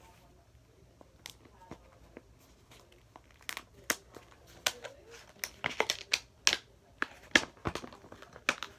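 A floppy disk's flexible plastic jacket being handled and pulled open to get at the magnetic disc inside, giving crinkling and sharp crackling snaps. The snaps are sparse at first and come thick and irregular from about three and a half seconds in.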